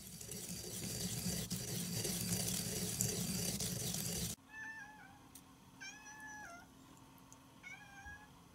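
A loud, even rushing noise for about four seconds that cuts off suddenly, then a cat meowing three times.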